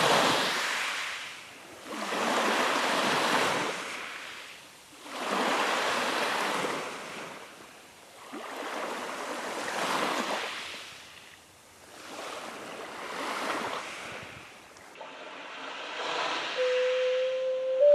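Surf washing onto a sandy beach in about five swells that rise and fall every three to four seconds. Near the end, an ocarina begins playing a single held note that steps up a little.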